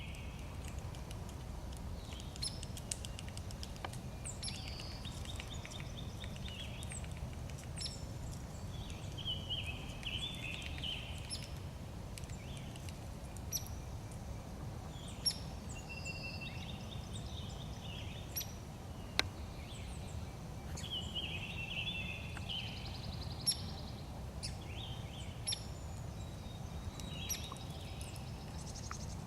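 Hairy woodpecker giving sharp, short sounds at irregular intervals, among the warbled songs of other birds, over a low steady rumble.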